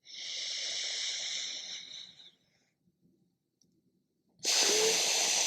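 Slow, airy breaths drawn through one nostril during alternate nostril breathing: one long breath for about two seconds, a pause, then a louder breath starting near the end.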